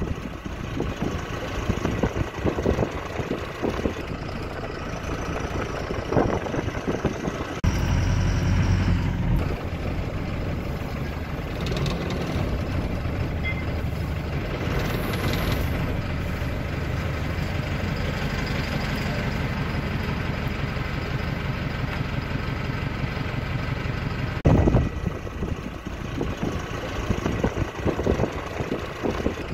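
Engine and road noise heard from inside a moving vehicle. Irregular gusts of wind on the microphone come and go at the start and again near the end, and a steady low engine hum dominates in between.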